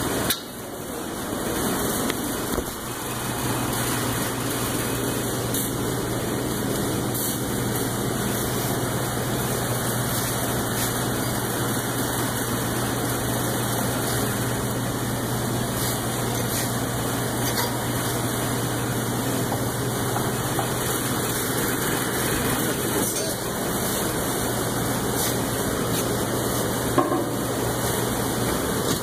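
Steady machine noise: a motor hums at a constant pitch under a rushing sound. It comes in a couple of seconds in and stops just before the end.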